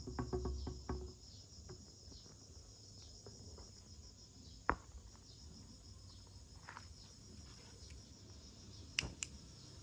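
Crickets chirping steadily in a high, pulsing drone, with a few low knocks in the first second and two sharp clicks, one about halfway and one near the end.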